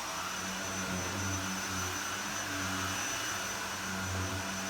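Upright vacuum cleaner running steadily: a motor drone with a thin high whine over it and a low hum that swells and fades every second or so.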